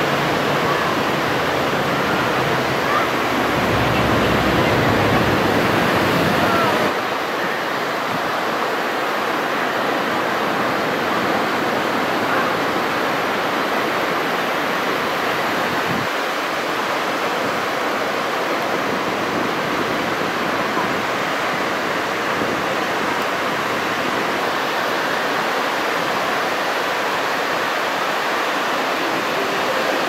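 Ocean surf breaking on a sandy beach, a steady wash of waves. About seven seconds in, a low rumble beneath it cuts off and the sound becomes slightly thinner and quieter.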